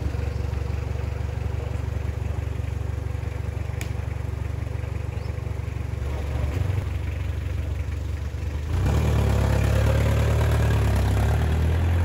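Pickup truck's engine idling steadily, then running louder about nine seconds in as the truck pulls away, with a single light knock about four seconds in.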